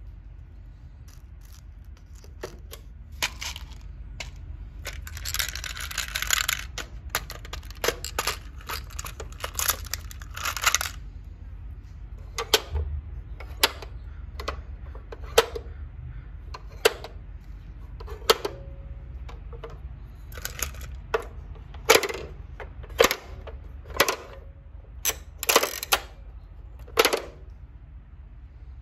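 Hard plastic clicks and snaps from a Playskool pop-up animal toy's buttons and spring-loaded lids being worked by hand. A busy run of clicks with a short rattle comes in the first half, then single sharp snaps about once a second as the animals pop up.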